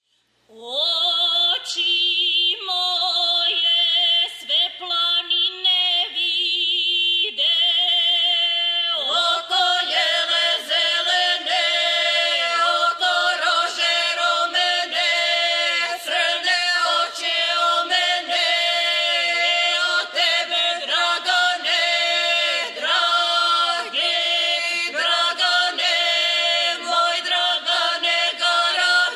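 Women's vocal group singing ganga, the unaccompanied traditional song style of Herzegovina, over a held low note. The singing is sparser at first and grows fuller as more voices come in about nine seconds in.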